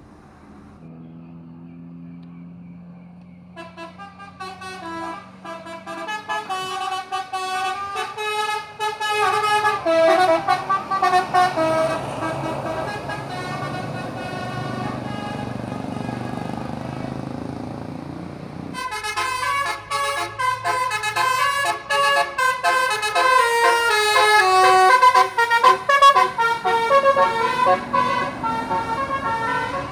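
Basuri "telolet" musical horns on tour buses play quick runs of multi-note tunes. After a few seconds of low hum, one tune sequence starts and grows louder. A second, louder run starts about two-thirds of the way in.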